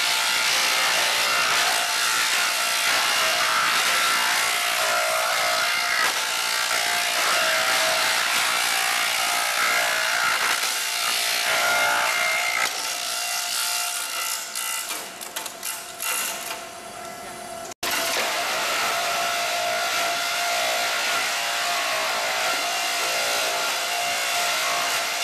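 Electric wood chipper running under load, a steady motor whine under a loud rushing hiss of wood being chipped. About halfway through it turns rougher and quieter with crackling, cuts off abruptly, then comes back running steadily.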